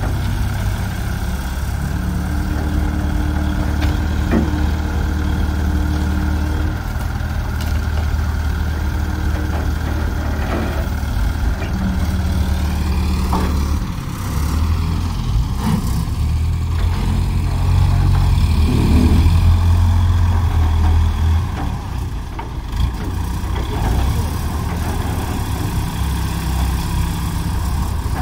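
Diesel engines of two Ace Hydra 14XW pick-and-carry cranes running, their speed rising and falling as the hydraulics lift and position a heavy load. Loudest in the middle of the stretch.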